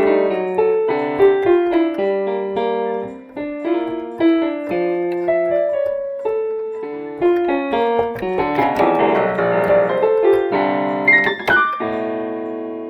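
Piano music: a solo piano playing a flowing melody over chords, with a quick run up into high notes near the end, then a held chord fading out.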